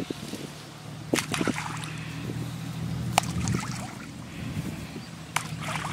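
Water splashing and sloshing in a canal as bait is scattered onto the surface and fish stir, with several sharp small splashes over a steady low hum.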